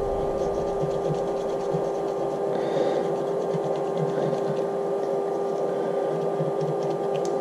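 Steady scraping and rubbing of a hand tool on the edge of an aluminium engine block as deposits are cleaned off, over a constant hum.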